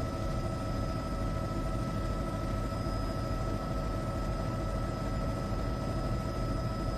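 Steady drone of a news helicopter heard from inside the cabin: a constant low rumble with several steady high whines on top.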